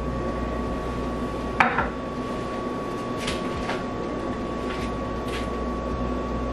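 A single light clink of kitchenware about a second and a half in, then a few faint clicks, over a steady hum.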